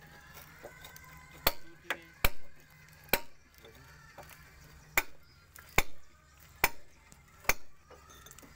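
Hammer blows on a precast concrete fence post and a steel rod: about eight sharp knocks roughly a second apart, each with a slight metallic ring.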